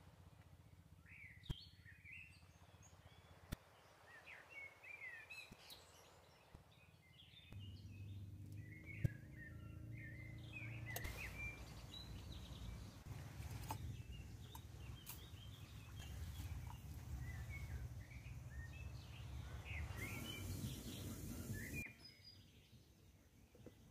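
Birds chirping again and again, with a few sharp clicks. A low steady rumble comes in about a third of the way in and stops abruptly near the end.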